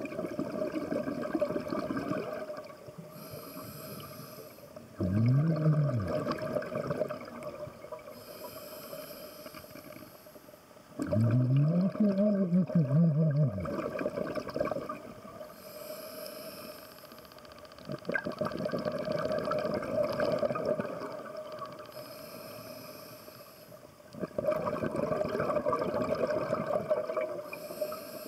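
Scuba diver breathing through a regulator. Quieter inhaled hisses alternate with louder bursts of exhaled bubbles, about one breath every six seconds. Two of the exhales carry a low hum that rises and then falls.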